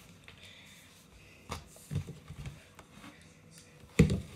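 Towel wiping over a plastic hamster cage base to dry it, with a few light knocks of the plastic being handled and a louder knock near the end.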